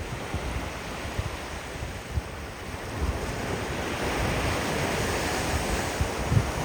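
Ocean surf washing on the beach, with wind buffeting the microphone in low gusts; the surf grows a little louder about three seconds in.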